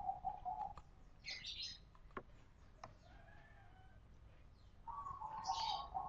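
Birds chirping in the background, with two clearer calls, one at the start and one about five seconds in, and a few faint sharp clicks in between.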